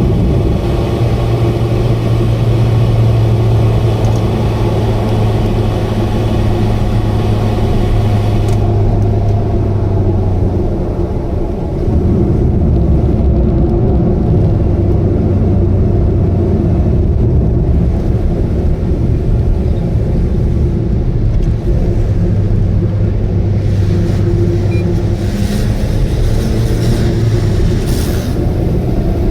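Subaru Vivio (KK3) kei car cruising at steady expressway speed: a continuous engine drone and road noise with a strong low hum. The hum fades for a while about halfway through, then returns. The car has an abnormal noise that the owner suspects may be an exhaust leak.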